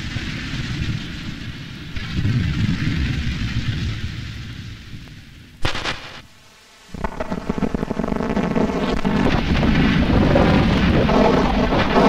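Abstract optical-film soundtrack of rumbling noise, like distant thunder, that fades away, broken by a sharp crackle a little before the middle. After about a second of near quiet, a denser rumble with a buzzing hum comes in and builds towards the end.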